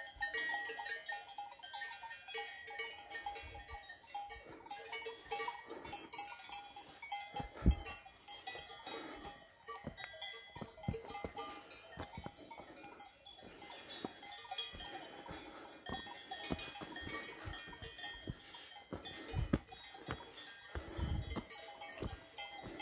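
Livestock bells ringing on an alpine pasture, over irregular footsteps on a rocky trail. A single sharp knock about eight seconds in is the loudest sound.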